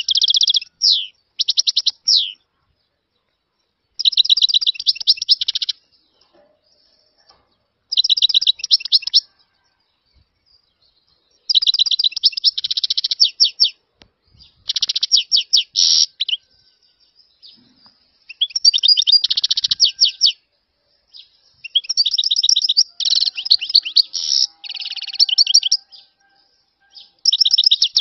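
European goldfinch singing: bursts of rapid, high twittering phrases, each about one to two seconds long, with short pauses between them, and a longer run of song near the end.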